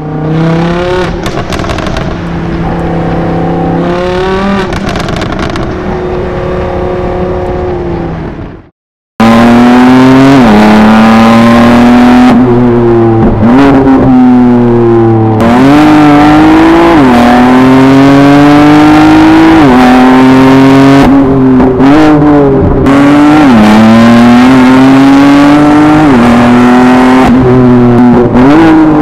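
BMW F80 M3's twin-turbo straight-six with a custom exhaust, heard in a road tunnel. For the first eight seconds or so it runs at a lower level with one brief rev. After a short break it is loud and accelerating hard, its pitch climbing and then dropping sharply again and again as it shifts up.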